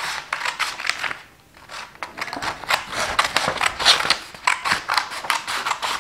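Scissors cutting a long strip of yellow craft paper: a quick run of crisp snips and paper crackle, with a short lull a little over a second in.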